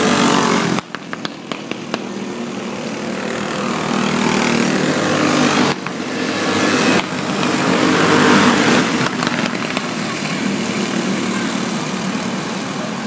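Racing go-kart engines running hard as karts race past on the track, loud and close. The level drops sharply about a second in and again near the middle.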